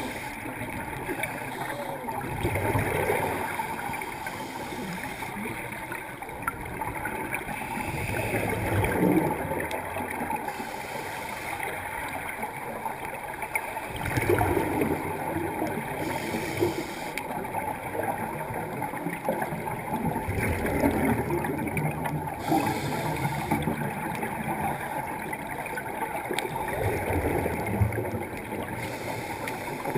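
Scuba regulator breathing heard underwater: a hiss on each inhalation, then a low bubbling gurgle of exhaled air, repeating about every six seconds.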